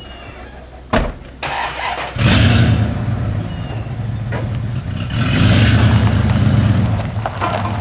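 A vehicle engine starts about two seconds in and runs steadily, getting louder for a while in the second half. A sharp knock comes about a second in.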